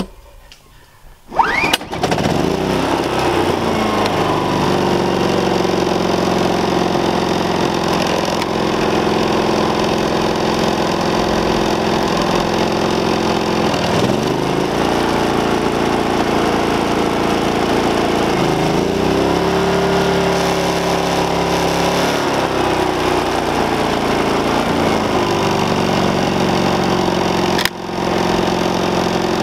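Briggs & Stratton P3000i inverter generator starting about a second and a half in, then running steadily in PowerSmart mode. Its engine speed ramps up and down several times as load is plugged in and taken off.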